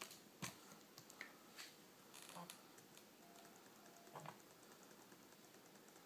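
Near silence, broken by a few faint clicks and taps from a laptop being handled, its screen lid moved and its keys pressed.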